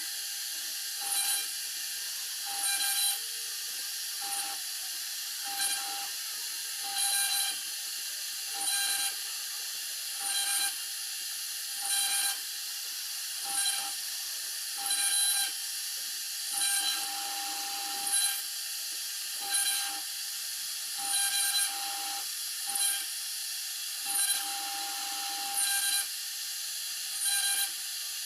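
CNC router spindle running with a steady high whine while its bit carves a design into a Lasani board, the cutting noise surging louder about every second and a half as the bit passes back and forth through the sheet.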